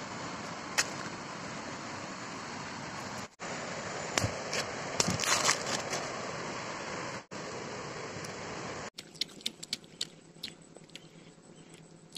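Dry bamboo leaves and litter crackling and snapping as they are pushed aside by hand, over a steady hiss, broken by three brief dropouts. About nine seconds in it turns quieter, with scattered light clicks and taps.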